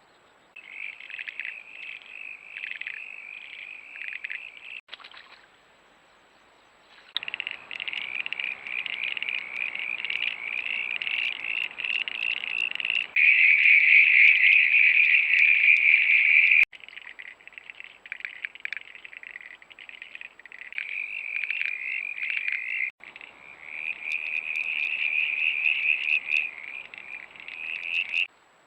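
Frogs calling at night: a chorus of rapid, pulsing, high-pitched trills, heard across several separate clips that start and stop abruptly. The chorus is loudest in the middle.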